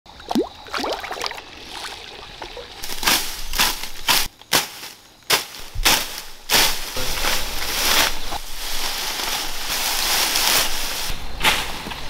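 Pond water sloshing as koi feed at the surface, then a run of sharp chopping strokes of a hoe cutting into weeds, followed by a steadier rustling of the vegetation being cleared.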